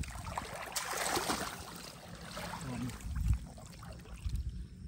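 Water splashing and trickling as hands work in shallow pond water, busiest in the first two seconds, with a dull thump a little after three seconds in.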